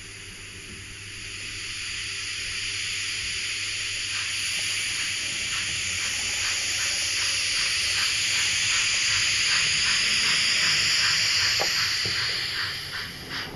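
ESU LokSound sound decoder in a model 140 C steam locomotive, playing a steady steam hiss as the engine starts off, then steam exhaust chuffs, a few a second and quickening, as it pulls away. The hiss fades near the end as the locomotive moves off.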